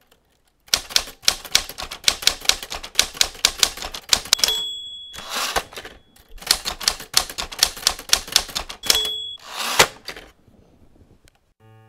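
Manual typewriter typing a quick run of keystrokes, about five a second, then ringing its bell and throwing the carriage return. A second run of keystrokes follows, ending again with the bell and a carriage return.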